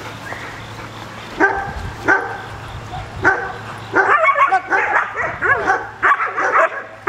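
A dog barking in excited bursts: a few single barks about a second apart, then a quick run of high barks and yips over the last few seconds.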